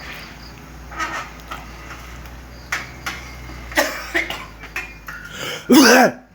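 A person coughing in a string of separate short coughs, ending in one loud, strained voiced cough about six seconds in.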